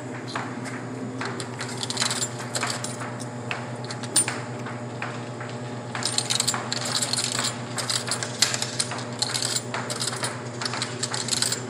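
Quarters being fed one at a time into a snack vending machine's coin slot, each clinking through the coin mechanism, the clinks coming thicker from about halfway. A steady low hum runs underneath.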